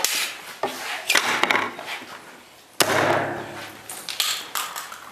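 Heavy competition cutting knife chopping through targets: a few sharp strikes, the loudest just under three seconds in, each trailing off briefly.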